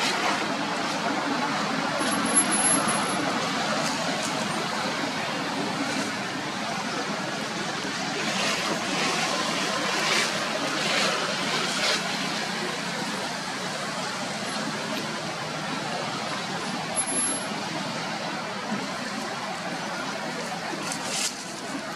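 Steady outdoor background noise with no single clear source, and a few brief scratchy sounds between about 8 and 12 seconds in.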